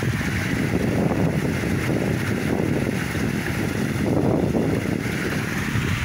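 Small waterfall spilling over a stone ledge into a pond, a steady splashing rush, with wind buffeting the microphone underneath.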